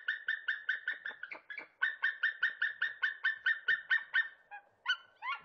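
White-tailed eagle giving its rapid, cackling call, a fast even series of short high notes at about six a second. The series breaks off briefly about a second in, runs on until near the end, and a few shorter, different calls follow.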